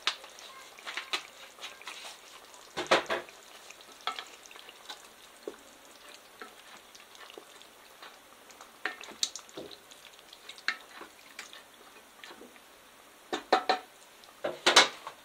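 Wooden spatula stirring chicken pieces and vegetables in sauce inside an electric multicooker's inner pot: irregular wet scrapes and clicks, with a louder knock about three seconds in and a few more near the end.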